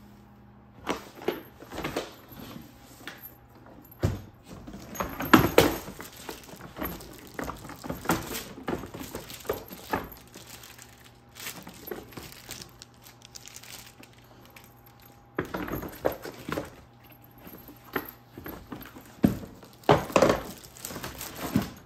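Louis Vuitton Horizon 55 rolling suitcase being handled, closed and stood up: irregular knocks, clicks and small clinks with rustling. Louder knocks come about five seconds in and again near the end.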